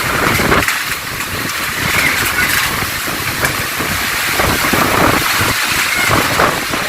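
Heavy storm rain hissing steadily, with strong wind gusting and rumbling against the microphone.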